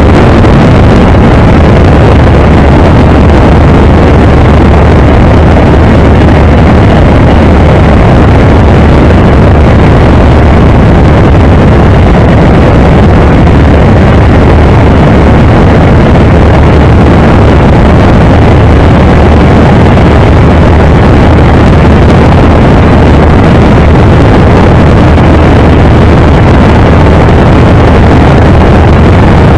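Gerle-2 light aircraft's engine and propeller running steadily in flight, heard from the open cockpit with wind rushing over the microphone; loud and unchanging.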